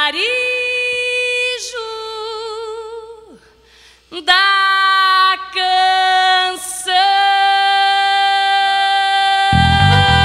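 A woman singing alone, without accompaniment, on long held notes with vibrato, breaking off briefly partway through. Near the end an accordion-led band comes in under her.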